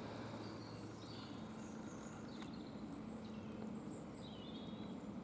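European robin singing faintly: short, high, thin warbling phrases at irregular intervals.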